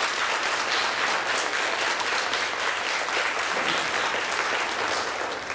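Congregation applauding: dense, steady clapping that fades out near the end.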